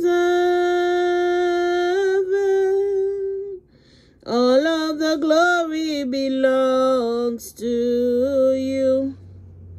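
A solo voice singing a slow worship chorus, largely unaccompanied. It holds one long note for about three and a half seconds, then after a brief breath sings a line that bends up and down in pitch.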